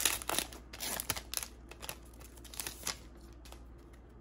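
A 2020 Topps Allen & Ginter hobby pack wrapper being torn open and crinkled by hand, a run of sharp crackles that thins out about three seconds in.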